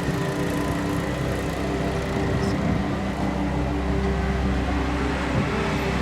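Motor vehicle engine running steadily with road and traffic noise, a constant low hum.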